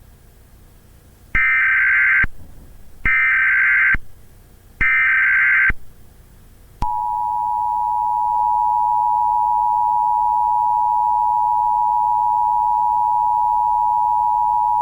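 Emergency Alert System broadcast tones: three short, harsh digital bursts of the alert's data header, each just under a second long and about a second and a half apart. Then, about seven seconds in, the steady two-tone attention signal begins and holds.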